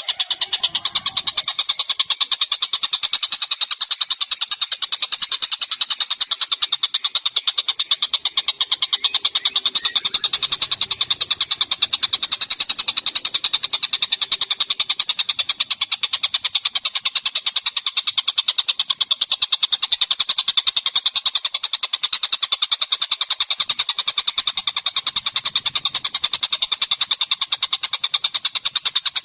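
A songbird masteran recording: one fast, buzzing trill of rapid even pulses, high-pitched and steady without a break, played as a loop for tutoring caged songbirds.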